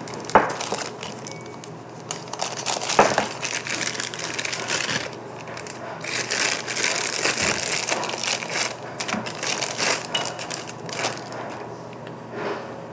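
Clear plastic packaging bag crinkling and rustling as it is handled and opened. There is a sharp click just after the start and another about three seconds in.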